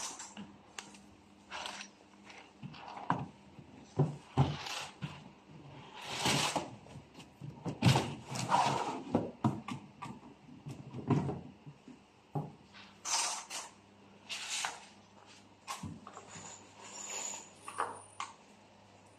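A wooden shoe-cabinet drawer being slid into its runners and pushed shut, with irregular scraping, knocks and clicks of wood on wood.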